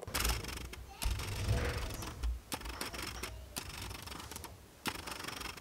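Autofocus noise from a Canon lens's DC focusing motor: irregular clunking and clicking with short whirring bursts as the motor drives the lens back and forth.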